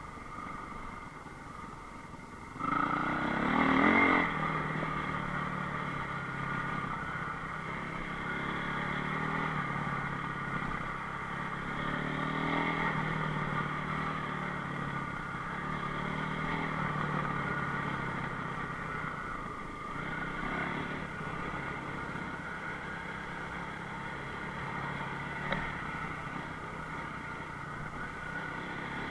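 Enduro motorcycle engine running steadily, revving up hard about three seconds in and then settling back to an even pull. A short sharp knock sounds near the end.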